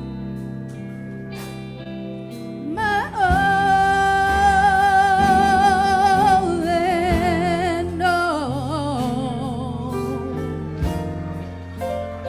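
A woman's solo singing voice in a gospel worship song over a steady instrumental accompaniment. About three seconds in she swoops up to one long held note with vibrato, then slides down to a lower sustained note.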